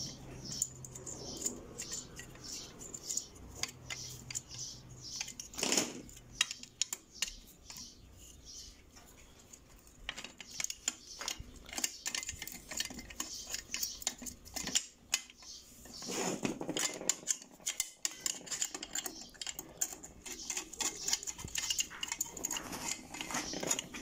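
Irregular small metallic clicks and clinks of screws being fitted and turned with a screwdriver into the steel mounting bracket of a Maytag washer drive motor, with a couple of louder handling knocks about six and sixteen seconds in.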